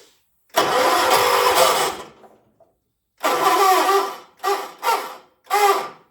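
1976 John Deere 300 garden tractor's engine being cranked by its starter without catching: one crank of about a second and a half, then four shorter cranks, the last three very brief. A hard start on a jumper pack that is not enough to get it going.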